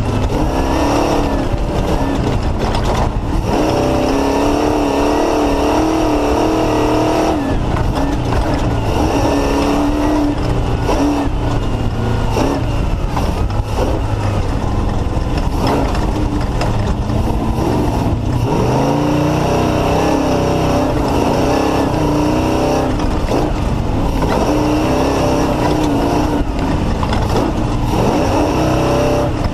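Off-road race car engine heard on board at race pace, its revs rising and falling as it shifts and accelerates, with frequent knocks and jolts through the chassis.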